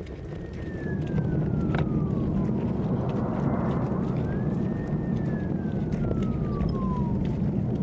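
An emergency vehicle siren wailing, its pitch slowly falling and rising, over a steady low rumble that grows louder about a second in.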